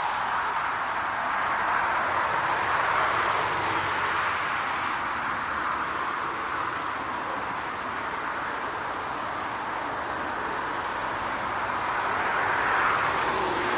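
Jet airliner engines heard from the ground as a steady, broad rushing noise that swells and eases slowly, loudest near the start and again near the end.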